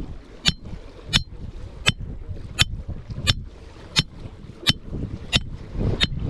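Sharp clicks repeating at an even pace, about three every two seconds, over a low wind rumble on the microphone.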